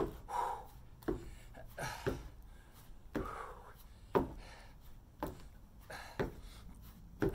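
Rhythmic thumps about once a second from a high-knee exercise with a tossed rock: feet landing on a wooden deck and the rock being caught in the hands, with heavy breathing between.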